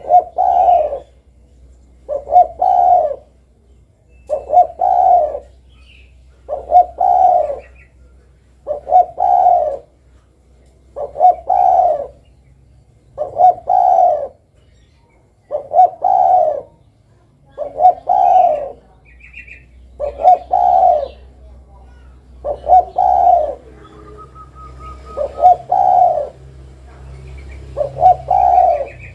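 Spotted dove cooing: a short phrase of a few quick coos repeated about every two seconds. A faint higher chirp comes in now and then.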